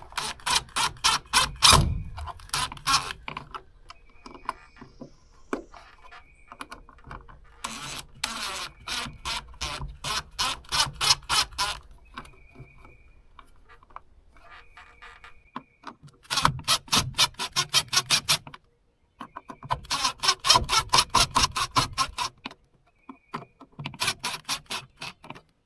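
Several runs of rapid, evenly spaced clicking from a ratcheting screwdriver, each lasting a second or a few seconds with pauses between, as screws are driven to fasten a wall switch into its electrical box.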